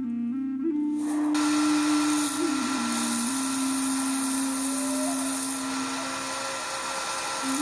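A power tool starts about a second in and runs steadily with a high whine and a hiss, over background music with a simple melody.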